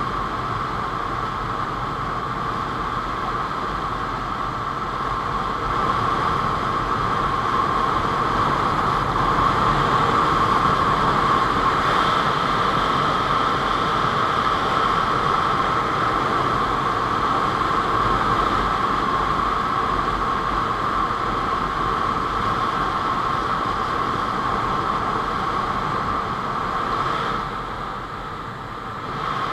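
Honda CBR600 F4i inline-four motorcycle running at road speed, heard under a steady rush of wind buffeting the camera microphone. The level dips briefly near the end as the bike leans into a bend.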